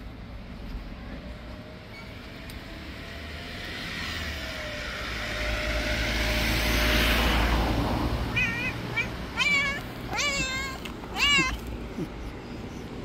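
A vehicle passes, its noise swelling and fading over several seconds, then a cat gives four short, wavering meows in quick succession in the second half.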